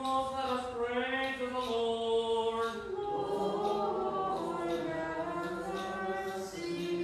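Byzantine liturgical chant sung on long held notes, with a second, lower vocal part entering about three seconds in.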